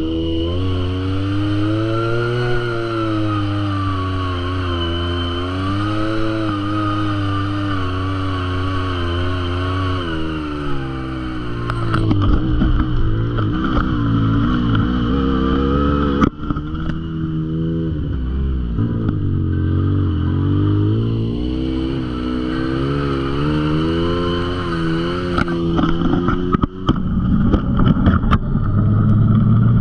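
Side-by-side UTV engine running as it drives a dirt trail, its pitch rising and falling as the throttle goes on and off. Rattles and knocks from the machine on the rough ground come in the second half.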